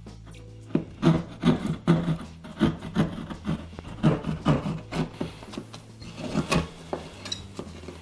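Drywall saw cutting through gypsum drywall in quick back-and-forth rasping strokes, about two or three a second, starting under a second in and stopping near the end, with background music under it.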